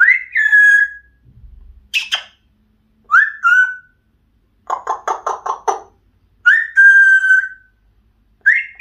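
Yellow-naped Amazon parrot whistling: a string of short whistles, each rising quickly and then holding a steady note, with a quick run of about six short, harsher notes near the middle.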